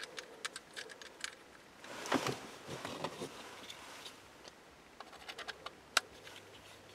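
Faint scattered clicks and taps of small metal screws and a folding Torx key being handled and turned to fasten a throttle position sensor onto an aluminium throttle body. There is a brief louder rustle about two seconds in and a single sharp click just before the end.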